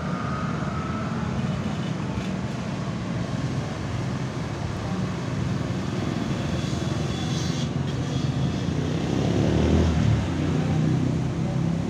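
Road traffic going past: cars and motorbikes running by with a steady engine and tyre rumble, swelling as a car passes near the end.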